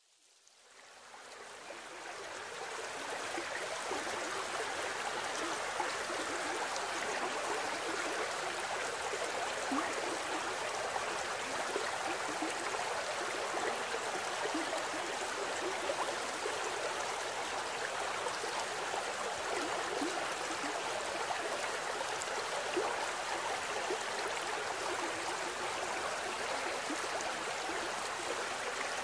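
A mountain stream rushing and gurgling over rocks in a steady flow. It fades in over the first few seconds.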